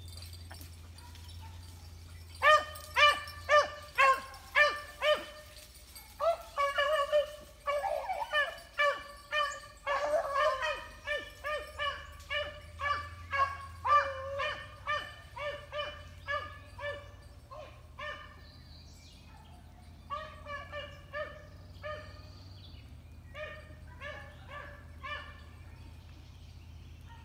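A pack of rabbit-hunting beagles baying: a run of short barks, about two a second, starting about two seconds in, with several voices overlapping, the sign that the hounds are on a rabbit's scent. The barks thin out and grow fainter in the last third, stopping shortly before the end.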